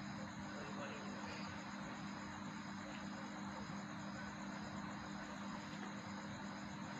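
Insects chirping steadily in the grass, a high pulsing trill that beats about twice a second, over a steady low hum.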